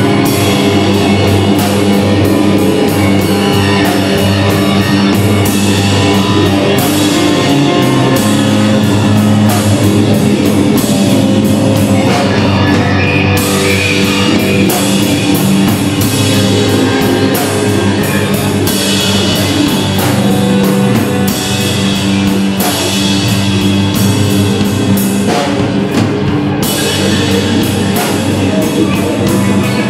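Loud live band jam: a drum kit playing rapid, steady hits over a held low bass note, with electric guitar in a dense wash of sound.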